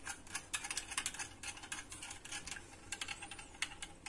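A metal spoon clinking against a small glass bowl while stirring yeast into water: rapid, irregular light clicks, several a second, thinning out near the end.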